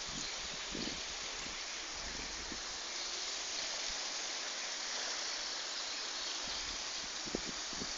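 Steady, even hiss of water outdoors, with a few soft low bumps about a second in and near the end.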